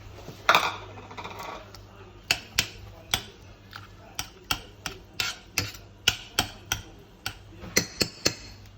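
A metal kitchen utensil knocking and clinking against cookware, a sharp tap about two or three times a second, as picked chicken meat goes into the broth. One louder knock comes about half a second in, and near the end a couple of taps ring briefly.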